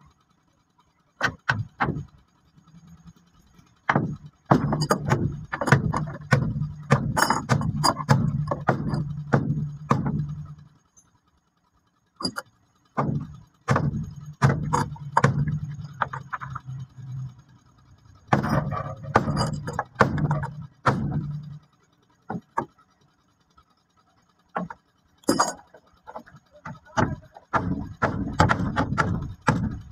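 Hand tools working a wooden boat timber: clusters of sharp, irregular taps and knocks, broken by short pauses. A low steady hum runs under the busier stretches.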